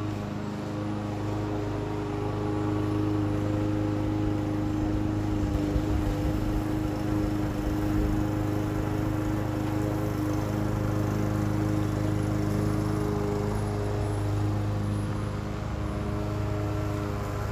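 Lawn mower engine running steadily, a constant hum with a noisy edge.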